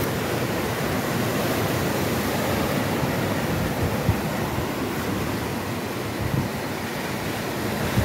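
Ocean surf breaking and washing up a sandy beach: a steady rushing of waves and foam.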